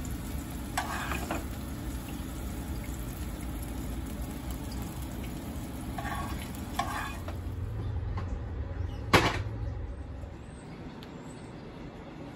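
Hot oil sizzling in a nonstick frying pan while a spatula lifts out fried eggs, scraping the pan briefly about a second in and twice more around six to seven seconds. A sharp knock a little after nine seconds is the loudest sound, and the sizzle fades near the end.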